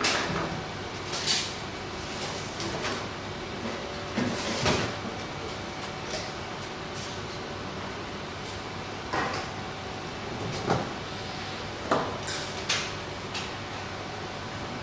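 Irregular clicks and knocks of small hard parts being handled and set down, about eight over the stretch, over a steady faint hum.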